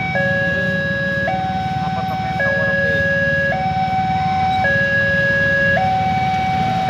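Railway level-crossing warning alarm sounding a two-tone signal, switching between a lower and a higher tone about once a second, the warning that a train is approaching while the barriers are down. A low rumble from queued car and motorbike engines idling runs underneath.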